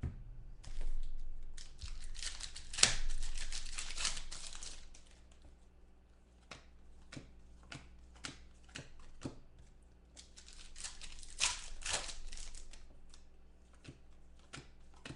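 Trading-card pack wrappers being torn open and crinkled, and the cards handled, in two stretches of crackling with sharp clicks of cards in between.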